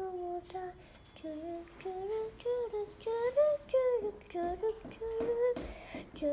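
A child singing a tune without clear words, holding notes and gliding up and down between them with short breaks.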